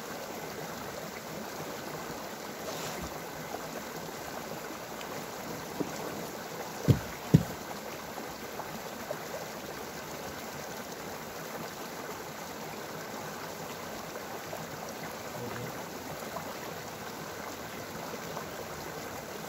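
Mountain stream rushing steadily, with two brief, loud, low thumps close together about seven seconds in.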